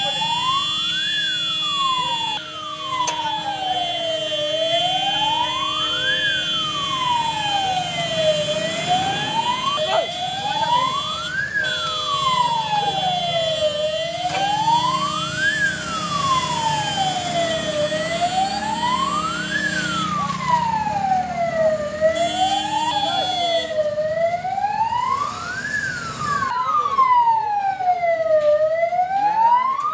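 Fire engine's wail siren, slowly rising and falling in pitch, one rise and fall every four to five seconds, over a low engine rumble.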